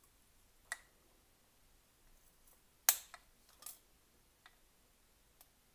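Toenail clippers snipping through a wooden candle wick made of two strips glued together with wax: one sharp snap about three seconds in, with a few small clicks before and after it.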